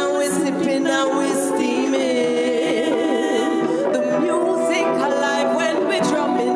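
A woman singing a reggae song live, with a run of quick pitch turns about halfway through, backed by a small acoustic band.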